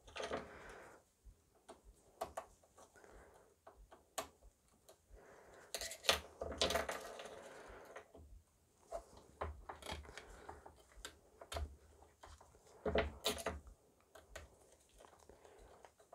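Irregular small clicks, clinks and rustles of hand tools and wiring being handled on a workbench while wire ends are stripped and connectors redone. Two louder, longer scraping bursts stand out, about six and thirteen seconds in.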